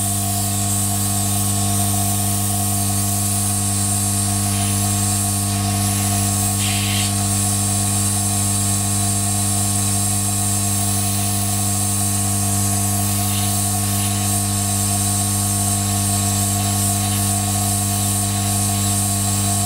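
Hot air gun running steadily: a constant electric hum with a few fixed tones under a high airy hiss, blowing hot air at its 500-degree setting to melt the solder under a CPU heat spreader.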